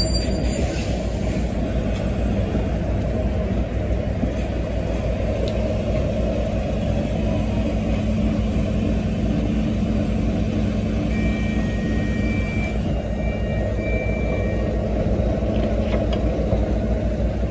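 Diesel engine of a Volvo B9TL double-decker bus idling steadily while stationary at a stop, heard from beside the bus.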